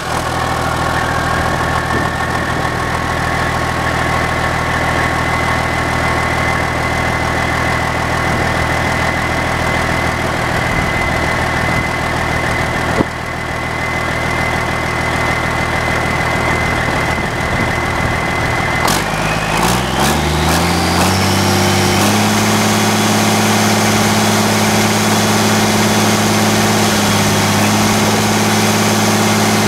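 Detroit Diesel Series 60 inline-six turbo diesel idling steadily, with a high turbocharger whine over the engine note. About two-thirds of the way through, the engine speed rises over a couple of seconds and holds at a higher steady speed, and the turbo whine climbs with it.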